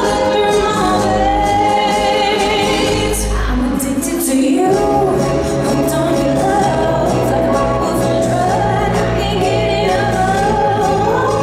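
Ballroom dance music with a singer holding long notes over a steady low accompaniment.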